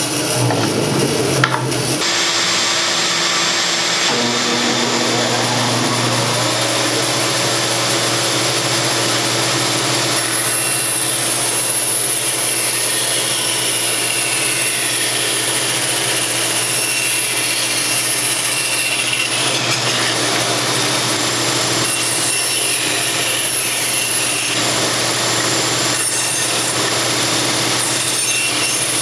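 Old Jet bandsaw running with a rusty blade, ripping a wooden board lengthwise along the fence: a steady motor hum under the hiss of the blade cutting wood, which thickens about two seconds in as the cut gets going.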